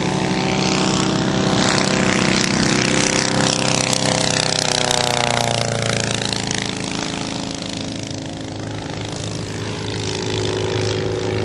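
Hummel UltraCruiser ultralight airplane flying a low pass, its engine and propeller droning loudly. The pitch drops as it goes by about five seconds in. The sound then fades somewhat as it climbs away and grows again near the end.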